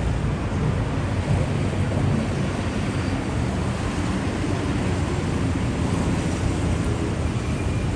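Steady city street ambience: a constant low rumble of traffic with a general wash of street noise.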